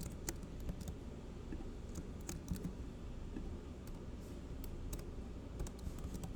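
Typing on a computer keyboard: scattered, irregular key clicks over a steady low background hum.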